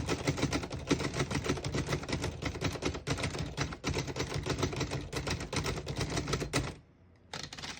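A 1937 Underwood Noiseless Model 77 portable typewriter being typed on quickly, a steady run of muffled keystrokes. Its Noiseless action presses each type bar against the paper rather than striking it, which softens the clack. The typing stops about seven seconds in, and a short cluster of clicks follows near the end.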